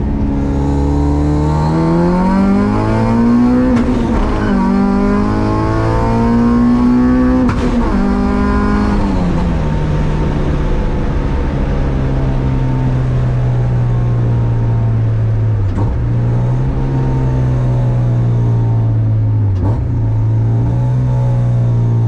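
Naturally aspirated H2B-swapped Honda Civic EG four-cylinder engine heard from inside the cabin while driving. It revs up, drops sharply in pitch about four seconds in as a gear shift would, and pulls up again. It eases off around eight seconds in, then runs at steady revs while cruising.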